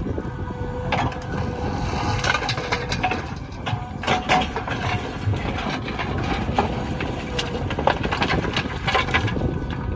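JCB backhoe loader's diesel engine running steadily, with irregular knocks and clatter from soil being dug and loaded.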